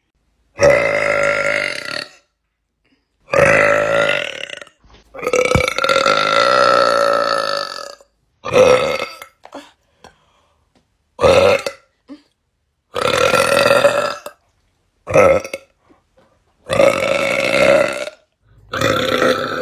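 A person burping loudly, nine drawn-out burps one after another with short silent gaps between, the longest, near the middle, lasting almost three seconds.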